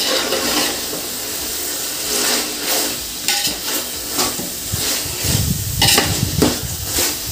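Chicken pieces sizzling as they are stirred and sautéed in a thick spiced tomato-onion masala in a large biryani pot, a ladle scraping through the pot with repeated strokes. A dull low rumble comes in about five seconds in.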